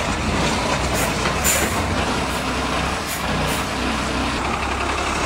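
Diesel engine of a stripped-down truck chassis running steadily, with five short hisses of air between about one and three and a half seconds in.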